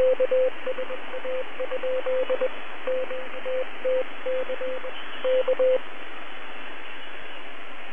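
Morse code received on the shortwave frequency of UVB-76 ('the Buzzer'): one steady mid-pitched tone keyed into dots and dashes over constant receiver static hiss. The keying stops about six seconds in, leaving only the hiss.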